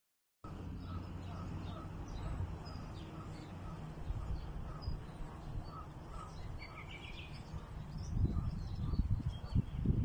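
Small birds chirping and calling over a steady low rumble of wind on the microphone, which turns gusty and buffeting near the end.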